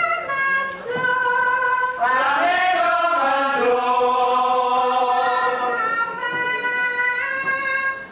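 Indonesian gamelan music with singing: long held notes that step from pitch to pitch, joined about two seconds in by several voices singing together for a few seconds.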